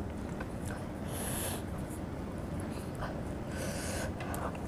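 Close-miked eating sounds: a person chewing with small wet mouth clicks and two short breaths through the nose, about a second in and again after three and a half seconds, over a steady low hum.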